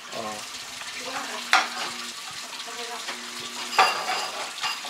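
A steady sizzling hiss, with two sharp clicks, one about one and a half seconds in and one near four seconds, and a faint distant voice.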